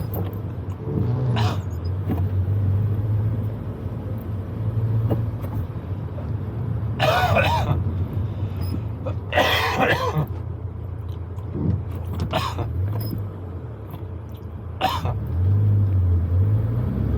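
Proton Wira 1.5's four-cylinder engine running steadily, heard from inside the cabin, with the revs rising near the end, while the driver coughs and clears his throat several times; the two loudest coughs come about 7 and 9.5 seconds in.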